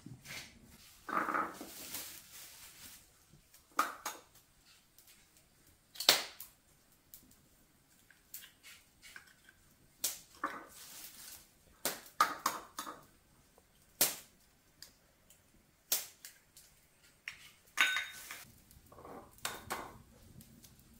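A series of sharp, separate knocks and clicks, irregularly spaced about one every one to two seconds, with softer scraping and rustling handling noise between some of them.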